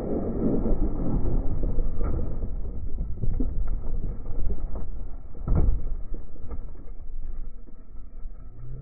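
Kart running off a wet track and bumping across grass: a heavy rumble with a few knocks, dying down as the kart slows to a stop near the end.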